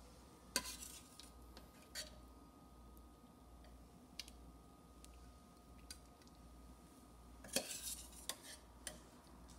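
Sparse, faint clinks and clatter of a serving utensil against the slow cooker's ceramic insert and a plate as potatoes and carrots are served, with a small flurry of clatter about three quarters of the way in. A faint steady hum lies underneath.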